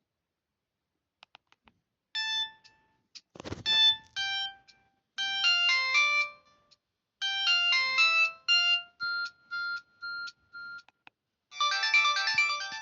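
Samsung E1080i mobile phone playing its built-in ringtones through its small speaker: after a few faint clicks, a melody of short, bright synthesized notes, with a knock about three and a half seconds in. Near the end a different, busier ringtone starts.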